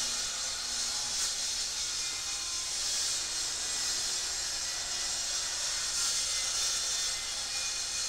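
Festool TS 75 EQ plunge-cut track saw cutting through a plywood sheet along its guide rail: a steady, even, high-pitched rushing sound.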